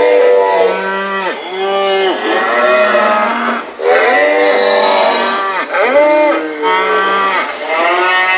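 Recorded cattle moos played from a model-train cattle car's built-in sound unit. There are about ten moos in a continuous run, one after another with barely a gap.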